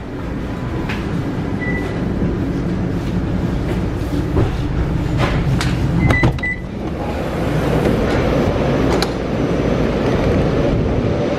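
Vienna U-Bahn metro carriage standing at a station with a steady low rumble, a brief beep early on and a pair of short beeps with clicks and knocks about six seconds in as the doors open. After that comes the broader noise of the underground platform.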